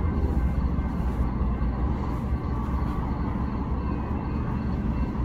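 Low, steady rumble of an approaching GE ES44DC diesel locomotive, heard from the trackside with no horn sounding.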